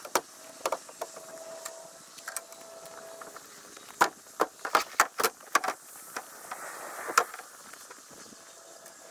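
Sped-up sound of a Tucker Kitten snowcat being loaded or unloaded: a run of sharp clicks and metallic-sounding knocks, densest about four to six seconds in, with a faint steady tone that stops about three seconds in.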